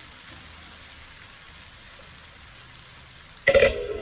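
Grated sweet potato sizzling in ghee in a covered kadai on a medium flame, a steady soft hiss as it steams. About three and a half seconds in, the metal lid clatters against the pan as it is handled.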